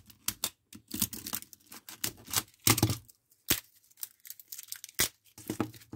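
Plastic battery packaging being torn and cut open: irregular crinkling and tearing with sharp clicks and knocks.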